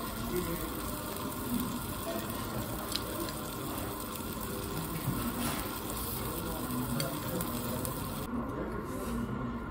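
Meat sizzling on a hot iron serving plate: a steady hiss, with a few faint clicks, whose high part drops away near the end.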